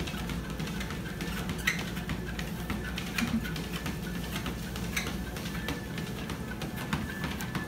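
A dogPACER dog treadmill running with a steady low motor hum, while the dog's paws and claws patter and click irregularly on the moving belt as it walks.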